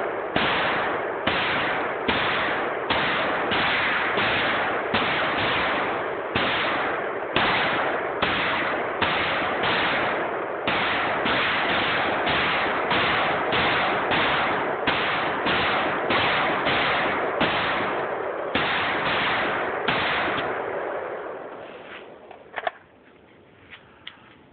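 MAK-90 semi-automatic AK-pattern rifle fired in steady rapid succession, about one and a half shots a second, each shot's echo running into the next. Firing stops about twenty seconds in, and a single sharp knock follows a couple of seconds later.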